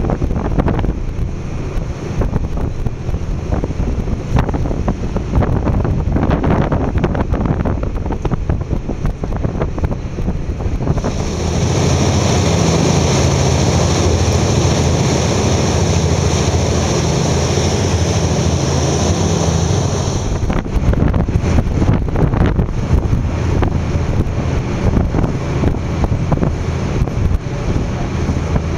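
Wind buffeting the microphone on the open deck of a tour boat under way, over the rumble of the boat and water rushing past the hull. For about nine seconds in the middle the noise turns steadier and smoother, with a hiss high up.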